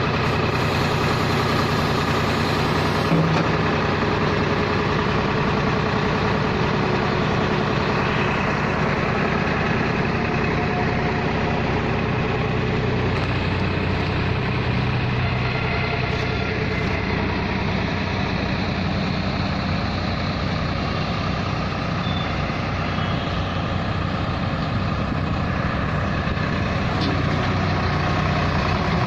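Diesel engine of a tractor backhoe loader running steadily at an even pitch, with one short knock about three seconds in.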